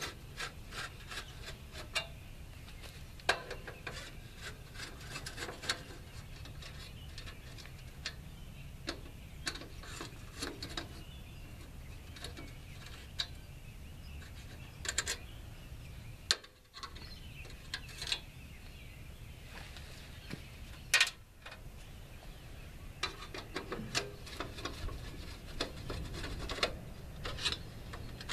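A screwdriver working the screws of a 1986 Ford F-150's headlight trim ring loose: irregular small clicks, scrapes and rubs of metal on metal, with a few sharper clicks scattered through.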